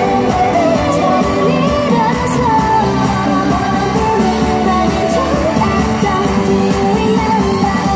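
Pop song with singing over a steady beat, played loud through a portable busking PA speaker.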